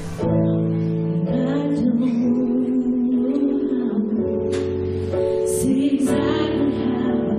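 Live church worship band playing a slow song: steady held chords with guitar, and a voice singing long drawn-out notes over them.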